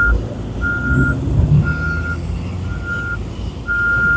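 Reversing alarm on a heavy road-works vehicle beeping steadily, about one high-pitched beep a second, over the low rumble of its engine running.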